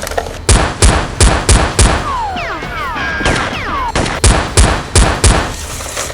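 Gunshot sound effects in two rapid bursts, about five shots then about six, with falling ringing tones between the bursts, over background music.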